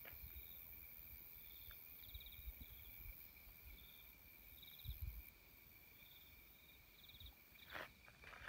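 Faint insects chirping in short pulsed bursts about once a second, over a steady thin high whine. A low bump of camera handling comes about five seconds in.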